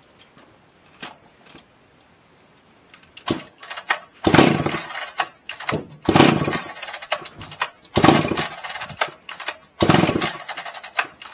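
Two-stroke Husqvarna chainsaw being pull-started over and over: after about three quiet seconds come about five loud bursts of roughly a second each, one every two seconds, each dying away again, so the engine does not stay running.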